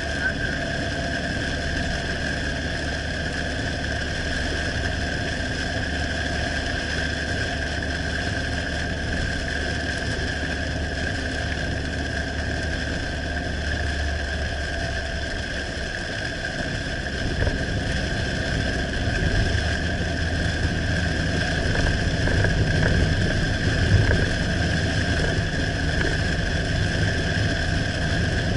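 Steady drone of a car driving on a highway, heard from inside the cabin: engine and road noise. The low rumble grows louder about two-thirds of the way through, with a brief thump near the end.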